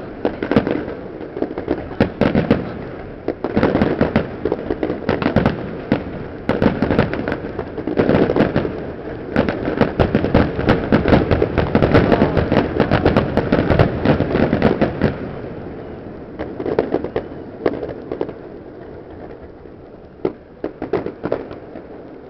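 Fireworks display: rapid, overlapping bangs and crackling that build to a dense barrage in the middle, then thin out to scattered bangs as it dies away.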